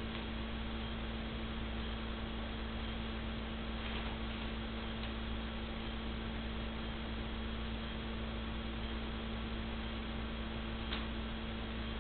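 Steady electrical hum over a constant hiss of recording noise, with a faint click about four seconds in and another near the end.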